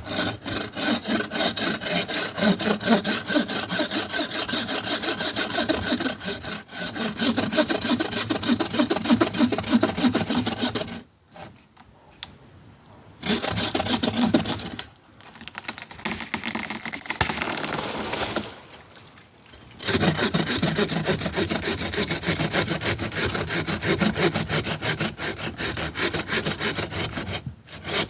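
Handsaw cutting through the trunk of a small mimosa tree in quick back-and-forth strokes. The sawing stops briefly about 11 seconds in and again just before 20 seconds, then picks up again.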